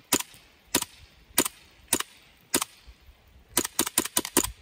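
HK USP airsoft pistol firing sharp pops: five shots at a steady pace, then a rapid string of about eight near the end.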